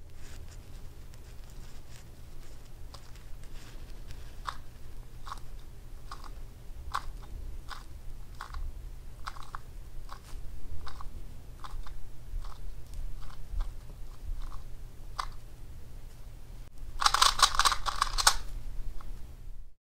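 YJ MGC magnetic 2x2 speed cube being turned by hand: separate plastic clicks of single face turns, about one a second, then a quick run of rapid turns lasting about a second and a half near the end as the algorithm is done at speed.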